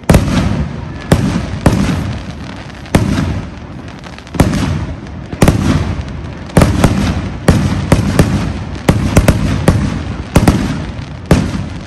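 Aerial fireworks shells bursting: about a dozen sharp booms, each trailing off in a rumbling echo, spaced roughly a second apart and coming faster in the second half.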